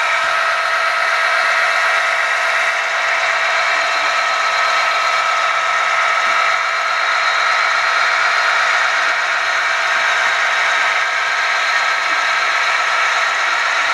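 HO-scale model diesel locomotive's sound decoder playing a steady diesel engine drone as the locomotive creeps slowly forward.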